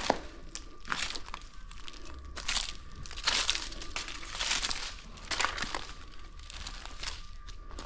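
Footsteps crunching over debris on the floor of a ruined building: a string of uneven crunches about one every half second to a second, the loudest cluster a little past the middle.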